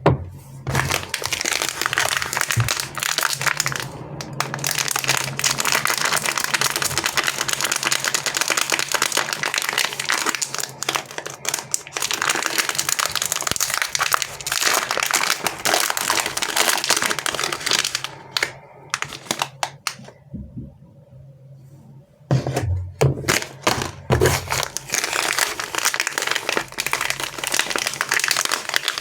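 Chocolate and sweet wrappers crinkling and crackling as they are handled and unwrapped, dense and continuous, with a short pause about two-thirds of the way through.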